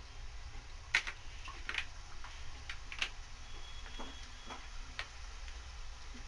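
Namak paare frying gently in oil in a kadhai on a low flame: a few scattered sharp ticks and pops, about one a second, over a low steady hum.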